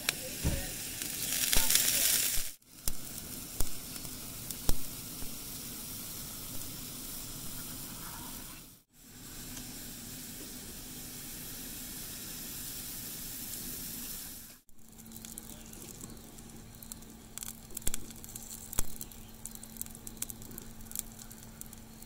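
Pancake batter sizzling on a hot, greased flat-top griddle as it is poured, with a steady hiss and scattered small pops. The sizzling is loudest in the first couple of seconds, and it cuts out briefly three times.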